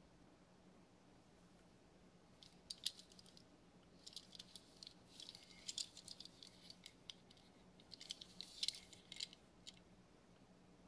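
Faint rustling and small clicks of cotton-gloved fingers handling and turning over a Hot Wheels Rodger Dodger diecast toy car, in three short spells, over a faint low hum.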